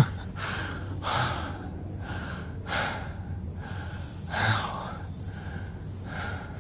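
A man breathing hard through an open mouth, ragged gasps in and out about every three-quarters of a second, over a low steady hum.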